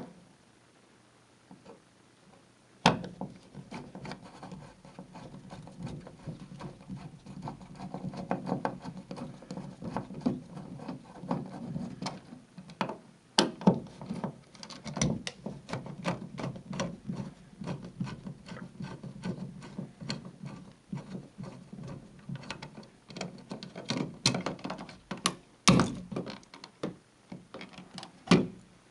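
Hands-on work at a wall switch box: irregular clicks, taps and rubbing of a screwdriver, screws, switch plate and wires being handled, with a sharp knock about three seconds in and a few louder clicks later.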